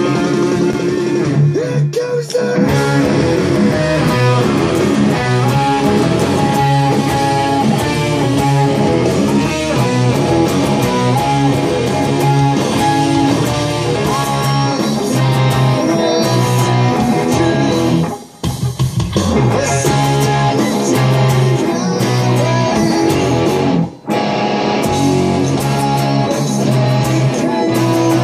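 Electric guitar played through an amplifier, a rock riff played continuously, with two short breaks about 18 and 24 seconds in.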